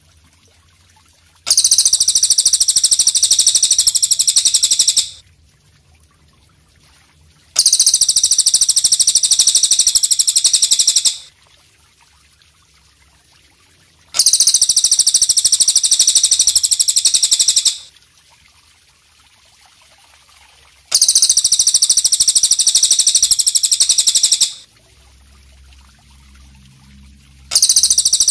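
Belalang kecek bush cricket (katydid) stridulating: a high, rapid, pulsing buzz in bursts of about three and a half seconds with quiet gaps of about three seconds between them, repeating evenly like a loop.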